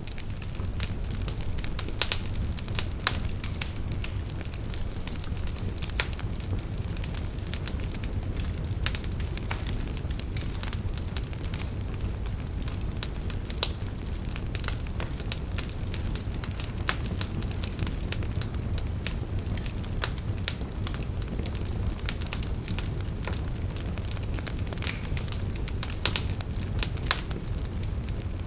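Bonfire burning: a steady low rumble with frequent sharp crackles and pops of the burning wood, fading in at the start.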